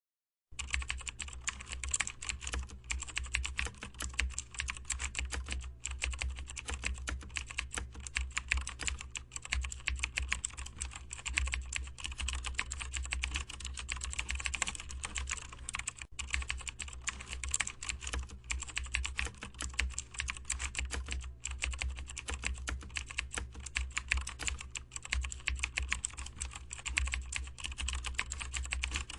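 Rapid, continuous typing on a computer keyboard, many key clicks a second with brief pauses, over a steady low hum.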